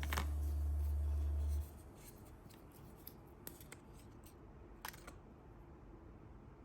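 A low music note holds for about a second and a half and then cuts off suddenly. After that come faint scattered clicks and rubbing from packaging or the watch being handled, with a sharper click about five seconds in.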